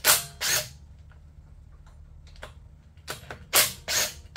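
Cordless impact wrench with a 13 mm socket, run in short bursts on the cylinder head bolts of a 1988 Club Car DS engine to loosen them for pulling the head. Two bursts come at the start and three or four more near the end.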